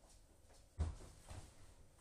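A single dull knock about a second in, then a fainter one half a second later, over quiet room tone.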